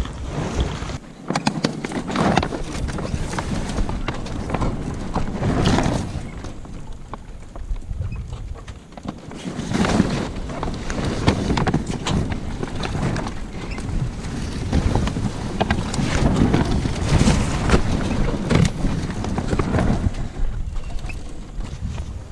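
A sail's cloth rustling and crinkling as it is gathered and handled by hand, in irregular swells, with wind noise on the microphone.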